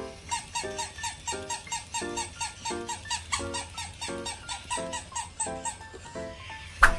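Bouncy background music with a plucked, even beat of about four notes a second. Just before the end, a single sharp, loud hit rings out, followed by a brief rising ringing tone.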